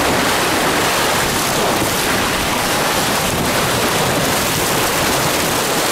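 Water rushing along the hull of a J80 sailboat moving fast through choppy sea, mixed with wind buffeting the microphone: a steady, loud rush.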